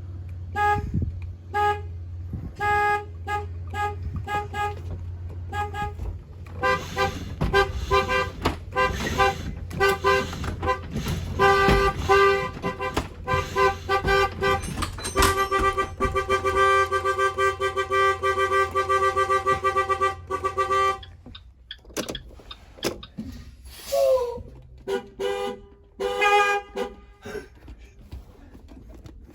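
School bus horn honked in many short toots, then held in long steady blasts, over a low steady rumble. The rumble and the long blasts stop about two-thirds of the way through. A brief falling tone and a few more short toots follow.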